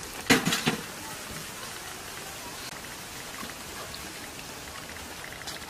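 Cooking oil pouring in a thin stream from a plastic bottle onto chopped onions in a large aluminium pot, a soft steady patter. Near the start there is a brief loud burst of handling noise.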